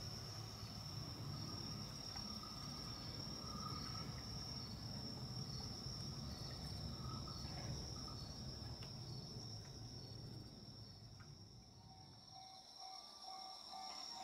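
Night crickets chirping: one steady high trill with a second, pulsed chirp beneath it, over a low rumble that dies away about twelve seconds in. A faint repeating tone starts near the end.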